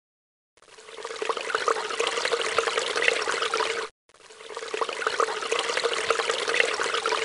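Water-like pouring and trickling noise with a steady hum beneath it. It starts about half a second in, cuts off suddenly just before four seconds, and swells back in straight away.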